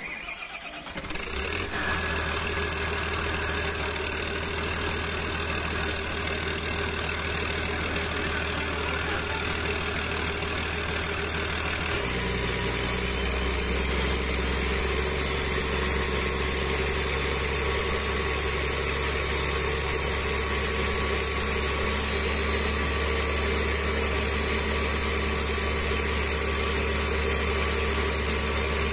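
Freshly overhauled Volvo D7E six-cylinder turbodiesel in an L120F wheel loader starting up right at the start, then running steadily at idle on its first run after the overhaul. Its low note changes about twelve seconds in.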